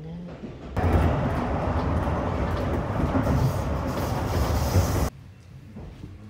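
Electric commuter train running along the track, heard from inside the car: a steady rumble of wheels on rail that cuts in about a second in and cuts off sharply about five seconds in.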